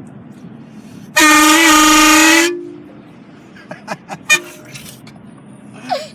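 Train horn fitted to a car giving one loud, steady blast of about a second and a half, followed by a few short knocks.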